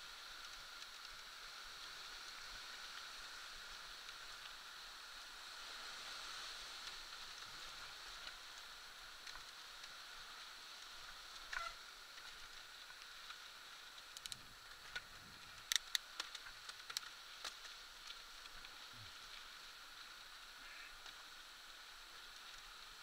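Mountain bike rolling down a dirt trail: a steady, muffled hiss of tyres and wind. A run of sharp clicks and knocks comes about two-thirds of the way through as the bike rattles over bumps.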